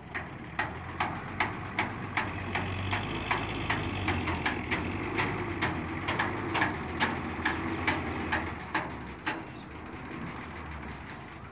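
Tipper truck's diesel engine running while its raised body comes down, with a sharp regular click about two and a half times a second that stops about nine seconds in.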